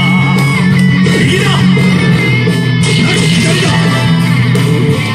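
Loud rock music with guitar played from a Hana no Keiji pachinko machine's speakers during its demo.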